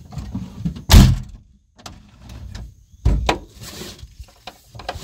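A Volkswagen Kombi's driver door slammed shut about a second in, the loudest sound, then a duller thump about three seconds in and a brief rustle as the seatbelt is pulled across.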